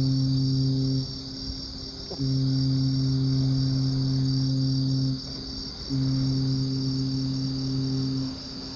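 Low-pitched ship's horn sounding in repeated long blasts of about three seconds each, with short gaps between them, over the steady chirring of crickets.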